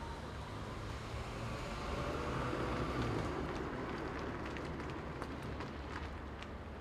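Outdoor street ambience: a steady traffic rumble that swells about two to three seconds in and then eases off, with a few faint ticks.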